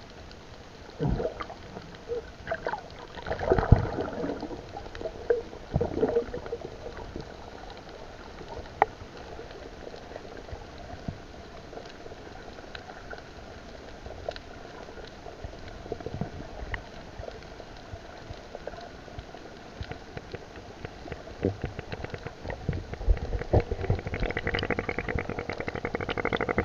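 Underwater sound through a submerged camera: a muffled water hiss with bubbling and gurgling and a few dull knocks in the first few seconds. Bubbling and crackling grow louder near the end.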